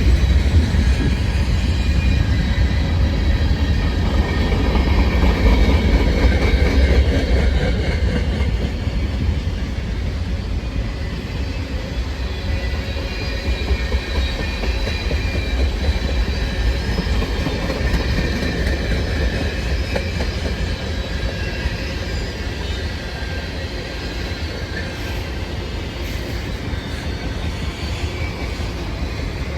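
CN freight train rolling past, its steel wheels clicking over the rail joints over a steady low rumble, with faint thin wheel squeal. It grows slightly quieter toward the end.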